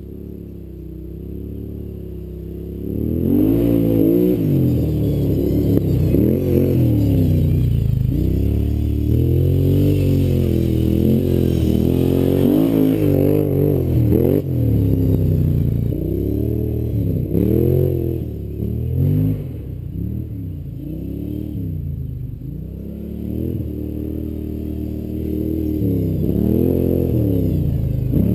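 Kawasaki KFX700 ATV's V-twin engine through an aftermarket Muzzy Super Pro exhaust, revving up and down again and again. Quieter at first, it gets loud about three seconds in.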